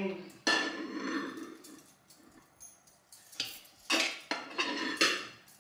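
Serving spoon scraping and clinking against a stainless steel pot and a plate while cooked rice is scooped out and served: a longer scrape about half a second in, then several short scrapes and clinks near the end.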